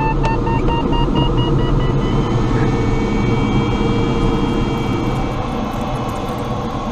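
Glider in flight: steady airflow rush with the variometer beeping rapidly, the beeps giving way to steadier tones about two seconds in. The sound grows fainter near the end.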